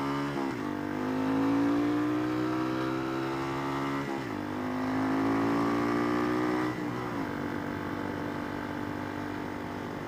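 Honda supermoto engine accelerating and shifting up through the gears: its note rises steadily and drops sharply three times, at each upshift, then holds steady in the last few seconds.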